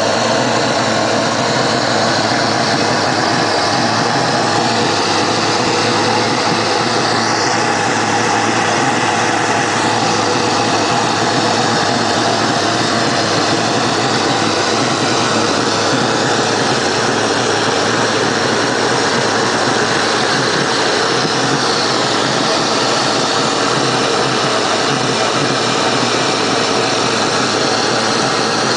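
Waste-oil jet furnace burner running on heavy oil: a loud, steady rushing noise that does not change.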